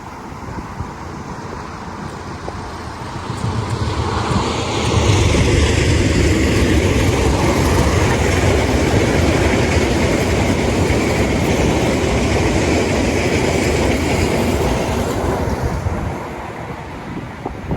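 A train passing close by on the track: the rumble of wheels on rails builds about four seconds in, stays loud for around ten seconds, then fades near the end.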